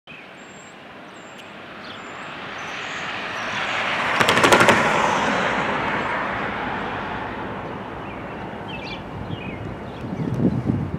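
A road vehicle passing close by, unseen: its tyre noise swells to a peak about four seconds in, with a quick burst of sharp rattling clicks at the loudest point, then slowly fades.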